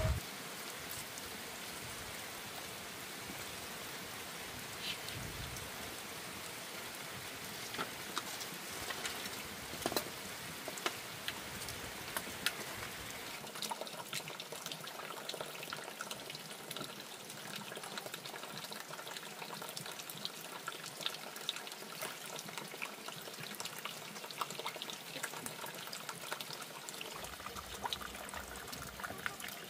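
Water trickling and splashing steadily, with many small scattered clicks and taps throughout.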